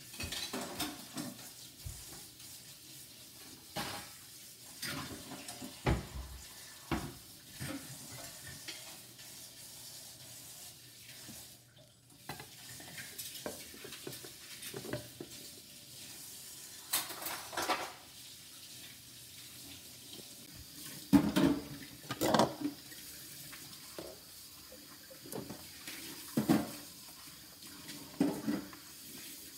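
Kitchen clatter: a frying pan, its glass lid and dishes knocking and clinking now and then, with the loudest knocks about three-quarters of the way in.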